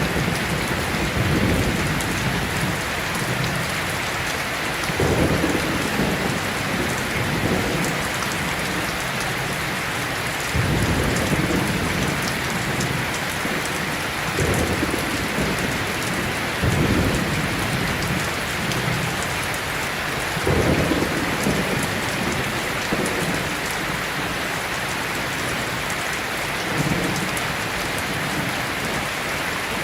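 Steady rain, with low rumbles of thunder swelling up briefly every few seconds.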